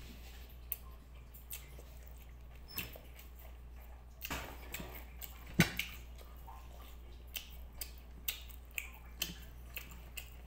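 A person eating rice by hand: chewing, with scattered sharp mouth clicks and smacks, the loudest a little past halfway, over a steady low hum.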